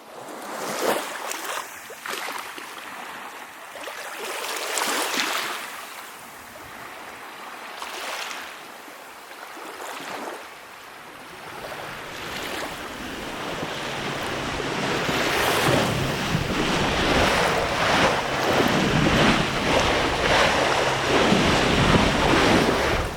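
Ocean waves washing and wind blowing at sea, with a few swelling surges of water in the first half. From about halfway on it grows louder, with wind buffeting the microphone.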